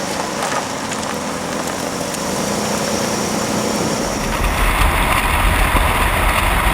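Dirt-track race car engines running on the track, a loud steady din that swells with a deep low rumble from about four seconds in.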